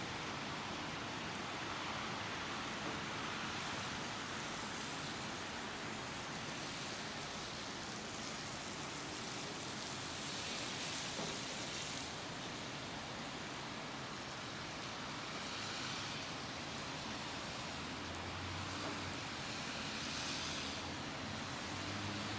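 Steady rain falling: an even hiss with a few brief swells.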